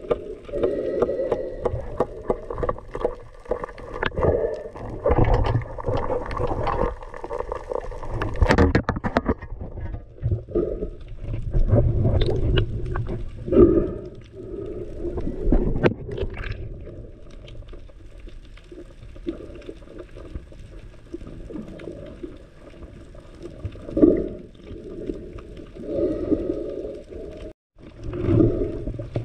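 Muffled underwater noise picked up by a camera in its waterproof housing: irregular water rushing and gurgling, with a few sharp knocks and thumps of handling. The sound cuts out for a moment near the end.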